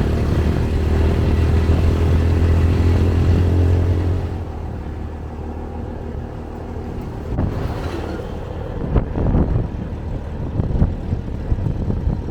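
Auto-rickshaw's small engine running steadily, cutting off abruptly about four seconds in. After that comes quieter road noise with scattered knocks and thumps.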